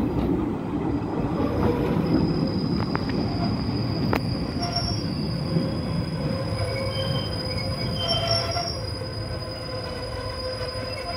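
Passenger train's wheels and brakes squealing as the train slows into a station: a steady high-pitched squeal sets in about a second in, with fainter squeal tones coming and going, over a low running-gear rumble that slowly eases.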